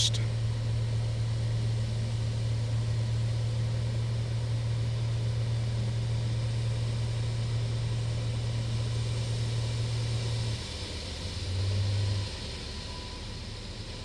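A steady low engine hum that drops away about ten and a half seconds in, followed by a short swell of hum near twelve seconds.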